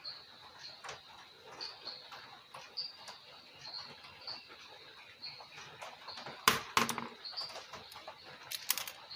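Small sharp clicks and taps of phone parts being handled while the power-button knob of a Samsung Galaxy J3 is fitted. A cluster comes about six and a half seconds in and another near the end, over a faint steady high whine and light chirping ticks.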